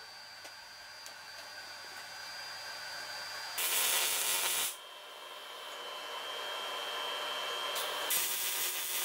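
MIG welder laying two short welds on steel, each a crackling hiss lasting about a second: one about three and a half seconds in, the other near the end.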